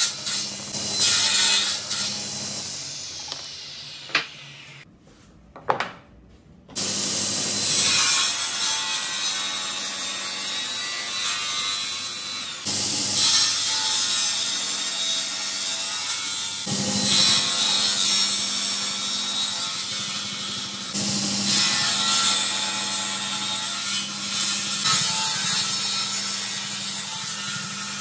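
Table saw running and ripping through small glued-up blocks of white maple and rosewood, in several loud passes with a steady motor hum under the cutting noise. A short near-quiet break about five seconds in.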